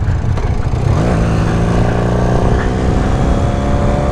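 Motorcycle engine pulling up through the revs over about the first second, then running at a steady pitch while riding, with wind rumble on the microphone.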